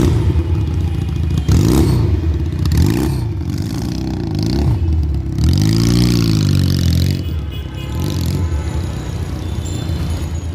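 Regal Raptor Spyder's 160 cc water-cooled two-cylinder fuel-injected engine running and being revved up and down several times, with one longer rev that rises and falls about six seconds in.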